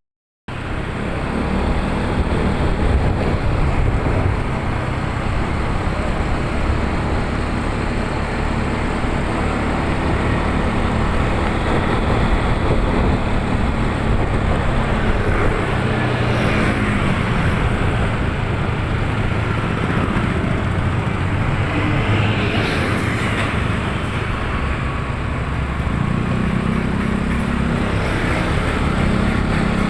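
Road vehicle on the move: continuous engine and road noise, with a brief dropout right at the start.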